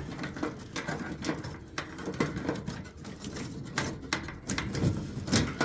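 Irregular small clicks, taps and rattles of hand work on wiring inside a metal HVAC cabinet, with a sharper click near the end.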